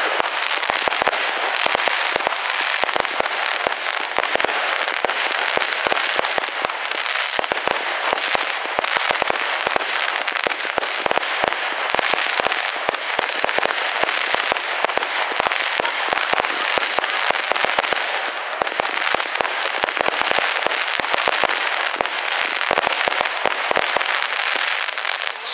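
Aerial fireworks display: a dense, continuous barrage of crackling pops from bursting shells and crackle stars, with no pause.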